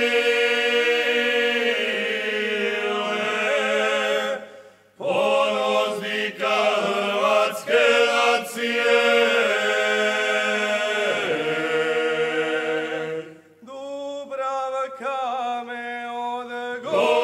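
A group of seven men singing a Herzegovinian folk song a cappella in close harmony, holding long notes with vibrato. They break off briefly for breath about five seconds in and again about thirteen seconds in.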